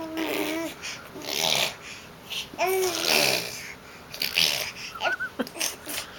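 Baby babbling: short high-pitched vocal sounds that glide up and down in pitch, with breathy sounds between them.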